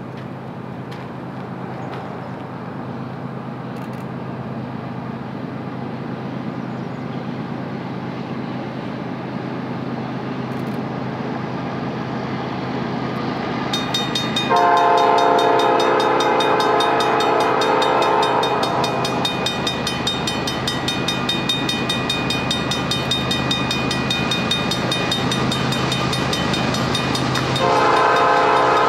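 GE Evolution-series diesel locomotives of a loaded unit oil train approaching, their low engine drone growing steadily louder. The lead locomotive's air horn sounds a long blast about halfway through, and starts another near the end.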